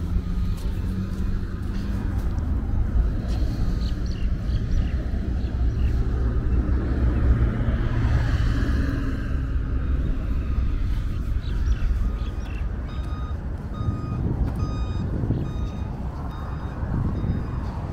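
Street traffic with a low steady rumble and a vehicle passing close about eight seconds in. In the second half a high electronic beep repeats about every two-thirds of a second, a reversing-alarm-style signal.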